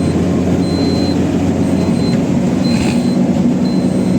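Maruti Super Carry mini-truck's four-cylinder engine running on CNG while driving at speed, heard from inside the cab with steady road noise. A short high electronic beep repeats about once a second.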